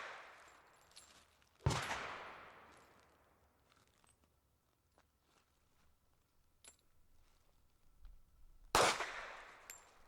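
Two single gunshots about seven seconds apart, the first under two seconds in and the second near the end. Each sharp crack is followed by a long fading echo. The tail of a shot fired just before is still dying away at the start.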